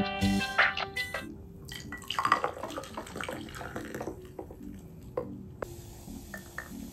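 Coffee poured over ice and milk in a tall glass: liquid splashing, with ice cubes clinking against the glass. Near the end, frothed milk is poured into a glass of coffee.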